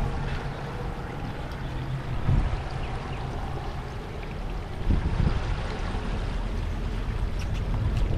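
Floodwater flowing steadily away through an unclogged street drain, with wind buffeting the microphone in low gusts, twice louder.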